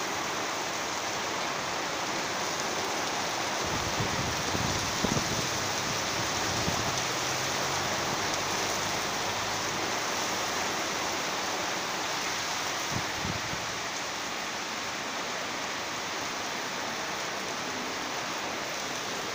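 Heavy rain falling in a steady, even hiss, with a few brief low thuds about four to seven seconds in and again around thirteen seconds.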